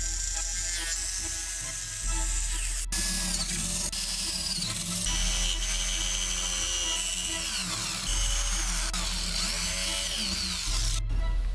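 A small power tool's motor whining and changing pitch as it speeds up and slows, over background music with a pulsing bass.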